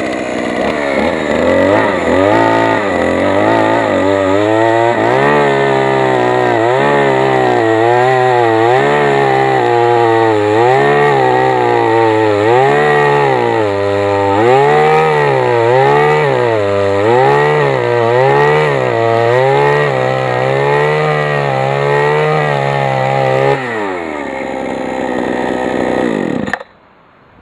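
Small 49cc two-stroke post-hole borer engine running, its speed surging up and down about once a second. Near the end it drops back to a lower speed, then cuts off.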